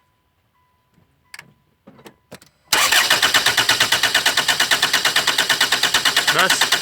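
2008 Hyundai Tucson engine cranking on its starter motor in quick, even pulses for about four seconds without catching, beginning about three seconds in after a few light clicks. This is the cranks-but-won't-start fault, with code P0340 pointing at the camshaft position sensor.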